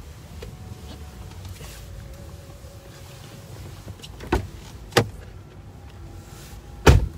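Low rumble of a car moving slowly, heard from inside the cabin. Three sharp thumps come about four, five and seven seconds in, the last the loudest.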